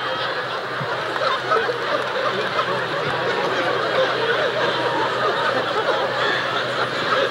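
Audience laughing, a sustained wave of many overlapping laughs.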